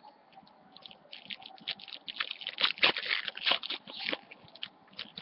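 Crinkly rustling and crackling of trading card packaging and cards being handled close to the microphone, a dense run of small crackles that is loudest in the middle.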